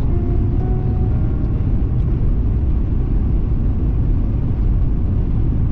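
Steady low road noise of a car cruising on a freeway, heard from inside the cabin: a constant drone of tyres and engine.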